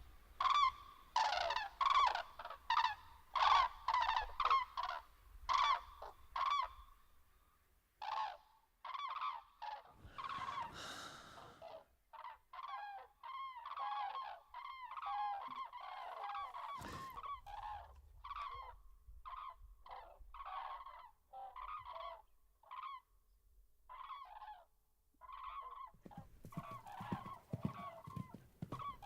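A flock of large birds calling over and over, many short arched calls in quick succession and overlapping. There is a brief rush of noise about ten seconds in and a sharp click near seventeen seconds.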